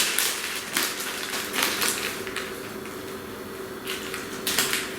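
Crunching of dry, seasoned instant ramen noodles (a Ppushu Ppushu snack) being eaten, in irregular crackly crunches a few times a second with a quieter stretch in the middle.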